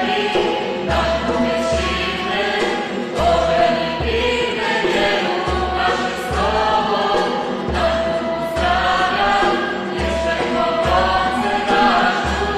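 A group of voices singing a Polish religious song together over instrumental accompaniment, with a bass note sounding about once a second.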